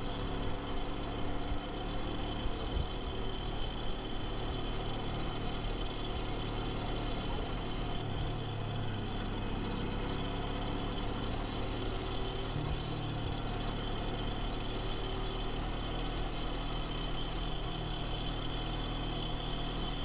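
Kawasaki Versys 250 motorcycle's parallel-twin engine running under way, its pitch shifting about eight seconds in and again near thirteen seconds, over a steady hiss.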